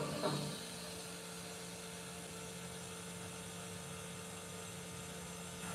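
Tattoo machine running with a steady hum while its needle lines skin.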